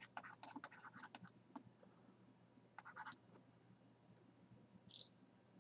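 Faint taps and scratches of a stylus writing on a tablet: a quick run of ticks in the first second or so, a short scratch about three seconds in and a single tick near the end.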